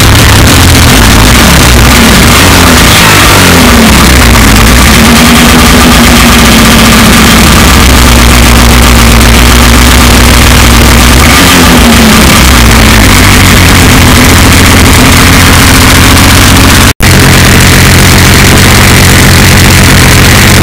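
Loud Ski-Doo snowmobile two-stroke engine running, with its revs rising and falling twice. Near the end the sound drops out for an instant.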